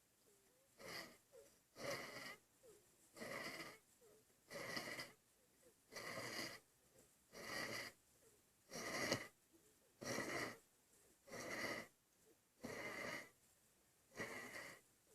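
Hard breathing in a steady rhythm: about eleven breaths, one every second and a half or so, with quiet gaps between them.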